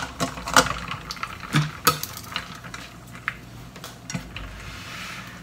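Kitchen handling sounds: about half a dozen separate sharp clinks and knocks as a metal mixing bowl is settled into a plastic bowl of ice water and an electric hand mixer is picked up.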